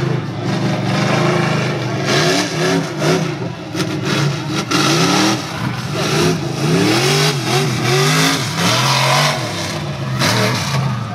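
Lifted mud-bog truck's engine revving hard, its pitch climbing and falling again and again as the throttle is worked, over a loud steady hiss.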